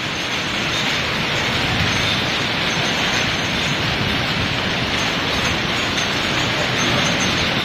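Hail and rain pelting wet paving stones in a heavy, steady downpour.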